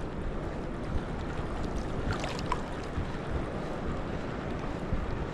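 Wind buffeting the microphone over small waves lapping around a wading angler, a steady rushing noise with a few faint ticks.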